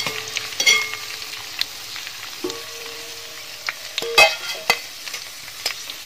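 Raisins sizzling as they deep-fry in hot oil in a metal kadai, with clinks and clanks of a wire skimmer against the pan and a steel plate as they are scooped out. A few clanks leave a short metallic ring, and the loudest comes a little past four seconds in.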